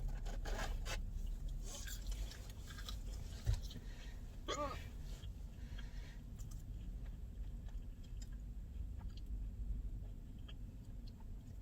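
A girl chewing crunchy food with her mouth close to the microphone, with crisp bites and crunches coming mostly in the first few seconds. One short, quieter hiccup comes about four and a half seconds in.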